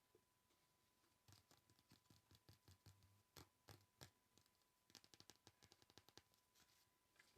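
Faint ASMR tapping: quick, irregular runs of light taps and scratches, starting about a second in and stopping shortly before the end.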